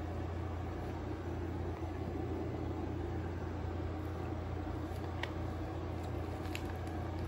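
Steady low mechanical hum at an even level, with a few faint ticks in the second half.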